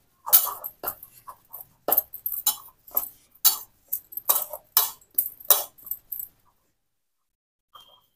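Hands kneading a soft, boiled rice-flour dough in a stainless steel bowl: short, irregular presses and scrapes about twice a second, with light contact against the steel. They stop about six seconds in.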